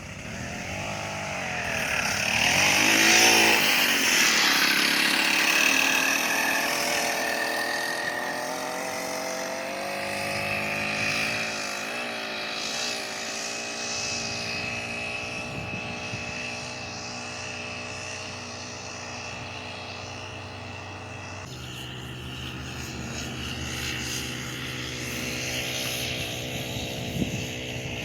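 Small gas engine running hard on a lap. Its pitch swings up and down during the first few seconds, then holds fairly steady, with a change in tone about 21 seconds in.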